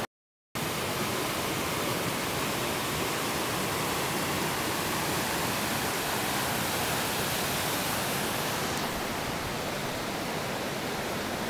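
A fast, shallow river rushing over rocks: a steady, even rush of whitewater that begins after a half-second silent gap.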